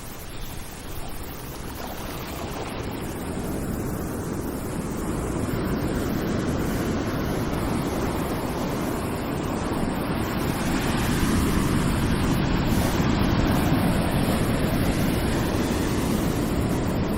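Ocean surf breaking on a beach: a steady wash of waves that builds gradually to its loudest about two-thirds of the way through, then eases a little near the end.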